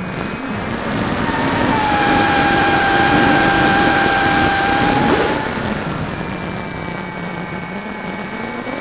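Electric motor and propeller of a Firebird Delta Ray RC plane heard through its onboard keychain camera, with air rushing over the microphone. About a second in the motor whine steadies at a louder, higher pitch, then drops back after about five seconds.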